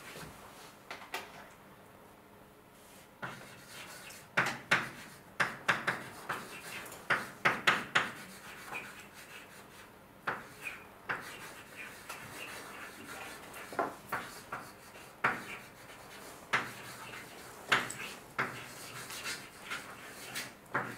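Writing on a lecture board: short, irregular scraping and tapping strokes that come in clusters with brief pauses between them.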